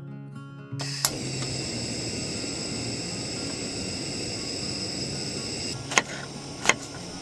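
Portable gas camping stove lit with a sharp click about a second in, then burning with a steady hiss. The hiss stops shortly before two knife cuts through a green onion on a wooden cutting board near the end.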